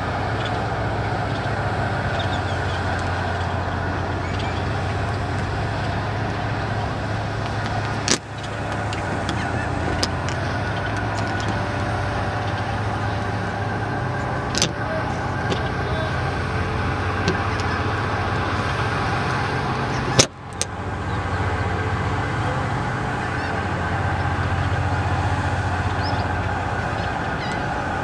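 Steady low engine hum over a noisy outdoor background. Sharp clicks about a third of the way in and again about two-thirds in, each followed by a brief dip in sound, with a few smaller clicks between.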